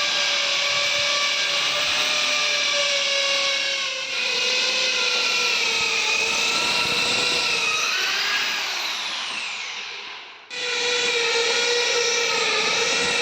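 Electric drill running at a steady whine. About ten seconds in it winds down, falling in pitch, then starts up again at once.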